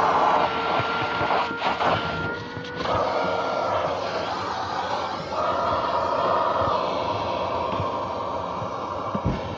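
Vacuum cleaner running with a steady motor whine and rushing suction air as the nozzle is worked over car floor carpet; the air sound shifts several times as the nozzle moves and presses on the carpet.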